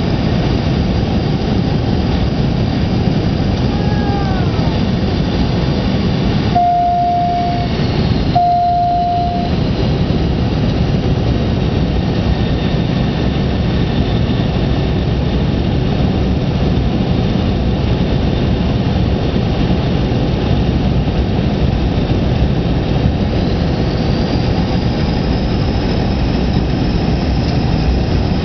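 Cabin noise in a McDonnell Douglas DC-9-30 airliner during descent: a steady roar of airflow and its rear-mounted Pratt & Whitney JT8D jet engines. Two steady tones of the same pitch, each about a second long, sound about seven and nine seconds in.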